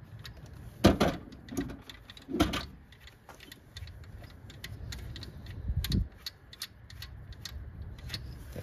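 Scattered light metal clicks and clinks from hand tools and engine parts being handled, with louder knocks about one and two and a half seconds in and a dull thump near six seconds.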